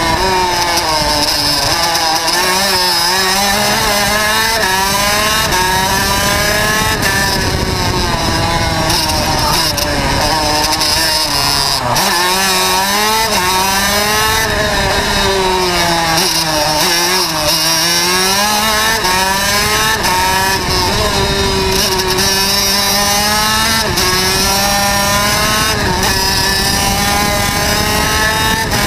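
Onboard sound of a two-stroke racing kart engine at full song, its pitch climbing as it accelerates and falling sharply as the driver lifts and brakes for corners, several times over one lap, with rushing wind noise over it.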